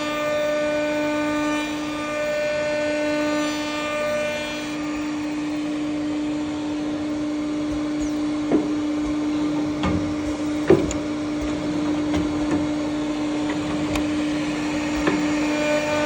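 A woodworking machine's electric motor running with a steady, even-pitched hum. Several sharp knocks of wood come in the second half.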